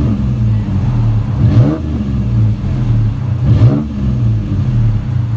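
2008 Ford Ranger's 4.0-litre V6 running through a Flowmaster Super 44 split dual exhaust, idling and then blipped twice about two seconds apart, each rev a quick rise in pitch that falls straight back to idle.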